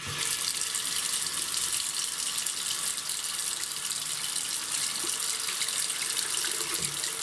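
Bathroom sink faucet turned on, a thin stream of hot water running steadily straight down the drain. The drain, treated with a hair-clog remover, is now taking the water away.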